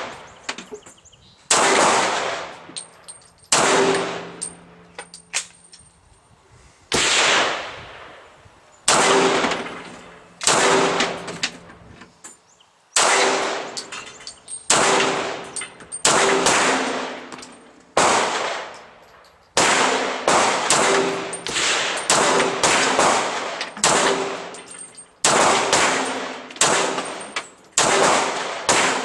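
STI 2011 Edge pistol in .40 S&W firing about twenty single shots, a second or two apart at first, then quicker strings about half a second apart in the second half. A short metallic ringing clang follows many of the shots.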